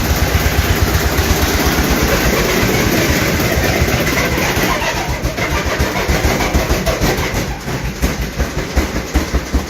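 Washing machine running with a loud, rhythmic knocking and rattle, about four beats a second, which grows more uneven in the second half.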